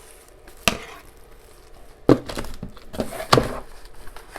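Three sharp knocks with rustling in between, from battery packs and their packaging being unwrapped and handled on a hard surface.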